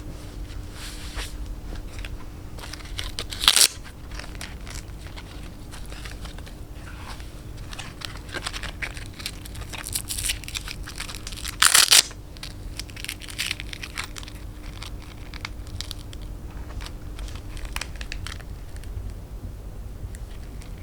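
Hook-and-loop (Velcro) ankle strap on a high-heel shoe being ripped open and fastened: two short, loud rips, one a few seconds in and one past the middle, with small clicks and rustles of straps and buckles being handled between.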